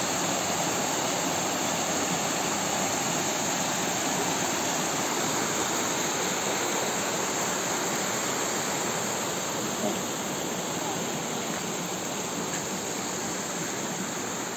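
Small stream cascading over mossy rocks: a steady rush of water, growing a little fainter toward the end.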